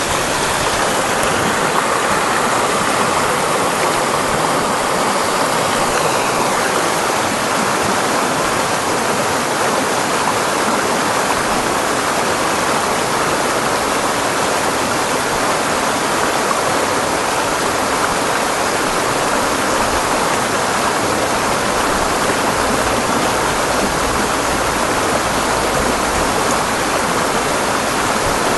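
Shallow rocky creek rushing and splashing between boulders, a steady, loud rush of water heard close up.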